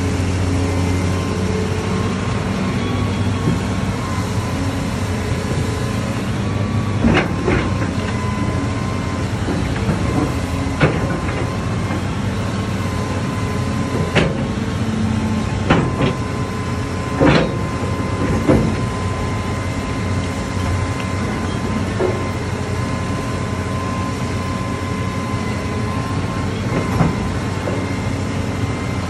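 Hitachi hydraulic excavator's diesel engine running steadily with a high whine, while its bucket breaks into a house's walls and roof. Sharp knocks and cracks of breaking structure come at intervals, the loudest about 17 seconds in.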